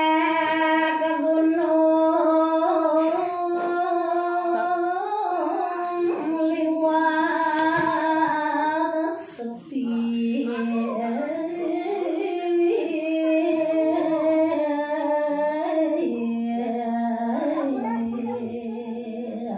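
A woman singing a Balinese geguritan tembang in sinom metre, solo and unaccompanied into a microphone. She holds long notes that step up and down between a few pitches, with a short breath about halfway through.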